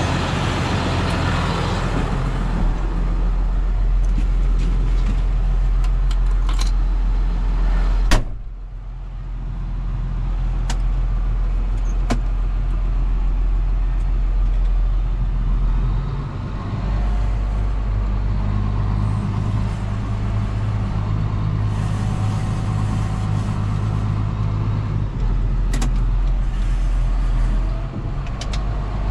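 John Deere 6930 tractor's six-cylinder diesel engine running steadily under load while pulling a Väderstad Cultus cultivator. A sharp click comes about eight seconds in, after which the engine sound briefly drops and then builds back up.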